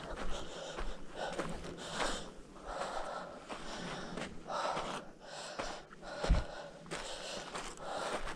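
A hiker breathing hard, with airy breaths about once a second, and a low thump about six seconds in.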